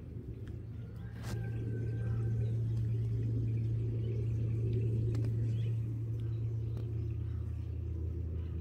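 Low, steady engine hum that grows louder about a second in and drops lower in pitch near the end, with a few faint clicks over it.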